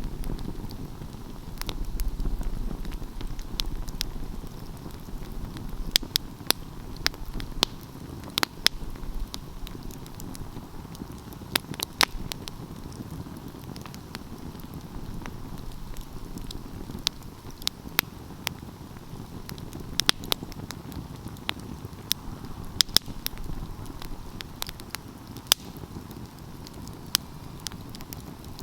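Wood fire burning with a steady low rush of flames and frequent sharp crackles and pops from the burning wood, coming in irregular clusters.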